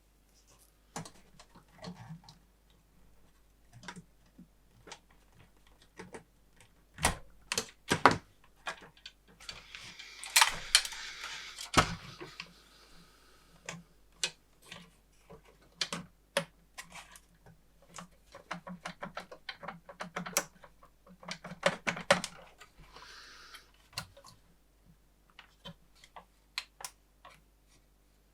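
Irregular small clicks, taps and knocks of hands and tools working on the opened oscilloscope's parts, with a few louder knocks and a brief rustle partway through.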